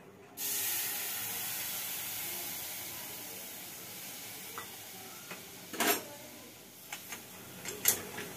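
Water poured onto sugar in a hot metal kadhai sizzling and hissing, starting sharply about half a second in and slowly dying down as the sugar syrup begins. A few metal clicks against the pan come near the end.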